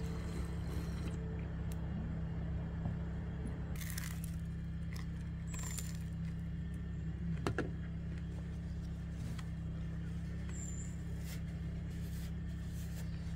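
Steady low hum of a running generator, holding one pitch throughout, with a few light metallic clinks and clicks over it.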